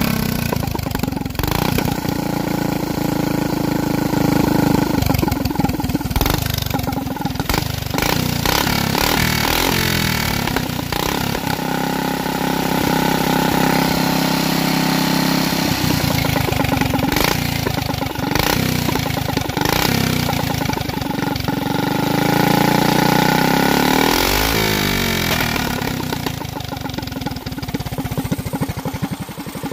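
Flathead Briggs & Stratton single-cylinder minibike engine running on methanol through an open exhaust pipe, the rear wheel spinning free on a stand. The engine speed rises and falls several times, dropping away about twenty-five seconds in and then picking up again.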